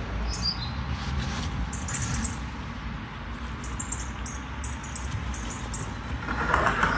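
Faint, intermittent scratching of a pencil drawn along a spirit level across an OSB roof board, marking the line for the drip-trim rebate, over a low steady rumble.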